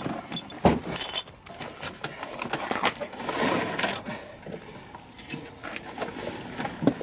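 Handling noise as a heavy metal lathe is shifted by hand: a few knocks and light metallic clinks in the first second or so, then a short scraping rush about three to four seconds in, then quieter shuffling.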